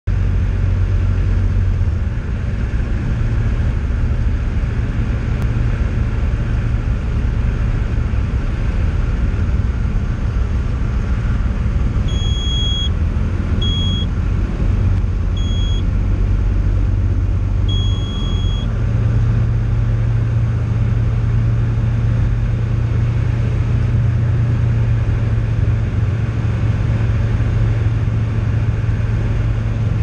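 Cockpit drone of a Tecnam light aircraft's piston engine and propeller in flight, steady and loud, mixed with rushing air. Four short high beeps sound in the middle.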